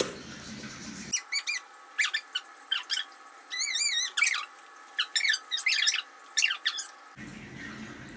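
A run of short, high-pitched squeaky chirps and warbles, a sound effect laid over the scene in editing, from about a second in until near the end.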